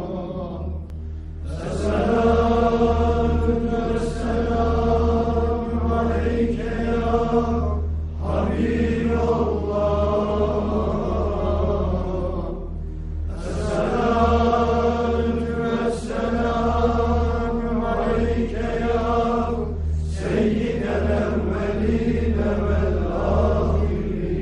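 Sufi dhikr chant: a group of men chanting in unison in long held phrases, each breaking off for a breath every few seconds, over a steady low hum.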